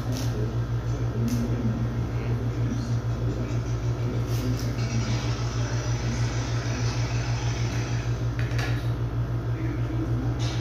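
A steady low machine hum, like a fan running, with a quick pulsing to it, and a few faint clicks and scrapes from melon halves being handled on a table.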